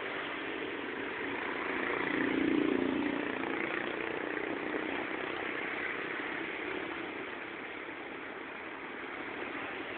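A vehicle engine idling steadily. It swells briefly about two to three seconds in.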